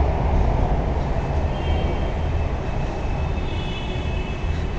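Metro train running through the station: a steady low rumble with faint thin high tones over it.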